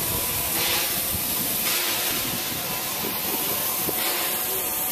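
Steam locomotive 77.28, an ÖBB class 77 tank engine, hissing steam, steady with two stronger surges, about a second in and again near the end.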